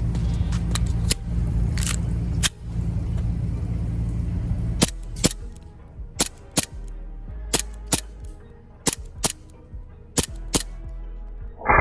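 WE-built TTI 2011 Combat Master gas blowback airsoft pistol firing a string of single shots, often in quick pairs, each a sharp crack, over background music.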